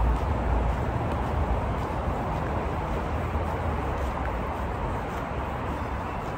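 Steady city street ambience: a low, even rumble of distant traffic.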